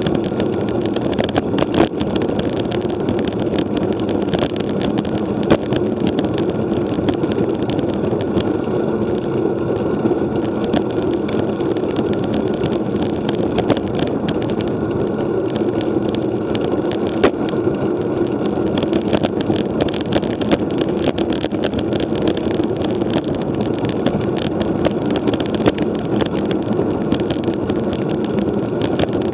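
Steady rush of wind and road noise while riding a road bicycle, with frequent small clicks and rattles throughout.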